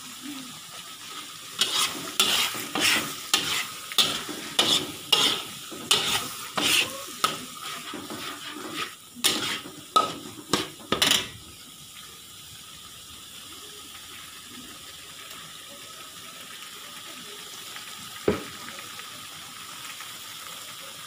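A metal spoon scrapes and stirs thick ground peanut, chili and garlic paste frying in a pan, about two strokes a second through the first half. After that only a steady quiet sizzle is left, with a single knock near the end.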